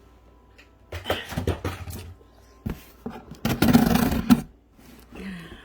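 Rustling and clattering of objects being handled and moved about, in two bursts, with sharp clicks among them.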